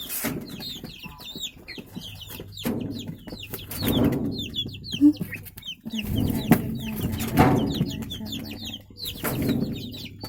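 Chickens clucking, with a constant stream of high, short chick peeps. Louder calls come about four seconds in, in the middle, and near the end.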